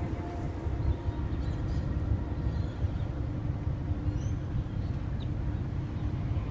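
Passenger ferry's engines running with a steady low rumble, with a few faint short high chirps over it.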